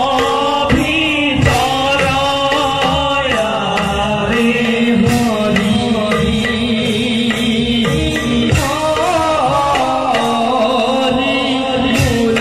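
Assamese Bhaona music: a voice singing a melody in raga Sindhura over drum accompaniment in ektaal, with sharp cymbal-like strikes now and then.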